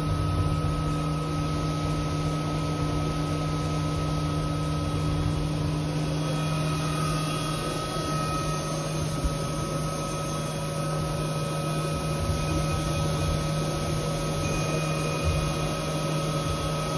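Haas CNC milling machine running a cut with flood coolant spraying. It gives a steady hum with a thin high whine over a hiss of spray and machine noise.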